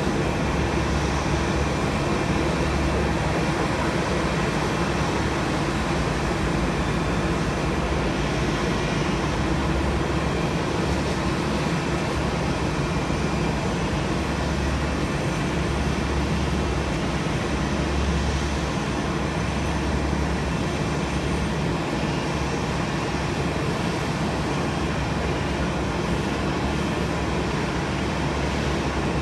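Jet airliner engines running on the ground: a steady rumble and hiss with a low hum that swells and eases now and then.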